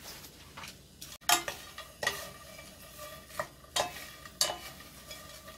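Two wooden spatulas scraping and knocking against a stainless steel frying pan as dried anchovies are stir-fried in canola oil. It starts abruptly a little over a second in, with sharp knocks every half second or so.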